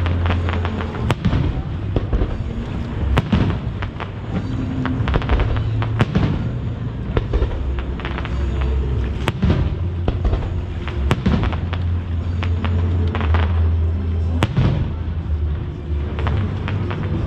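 Aerial firework shells bursting in a string of sharp bangs, the strongest every few seconds, with smaller reports and crackle between them. Music from shore loudspeakers plays underneath.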